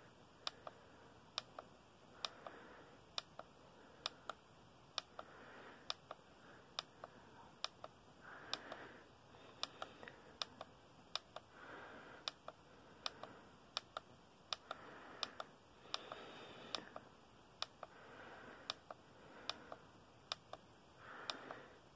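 Faint sharp plastic clicks at uneven spacing, about one or two a second, from a button on an LED face mask being pressed to step through its face images. Soft rustling of the hand handling the mask comes between the clicks.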